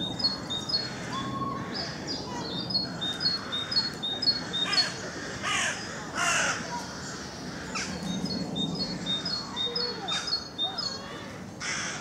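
Rooks give a few harsh caws in the middle. Behind them a great tit sings its repeated two-note song, high then low, about four notes a second, in the first few seconds and again near the end.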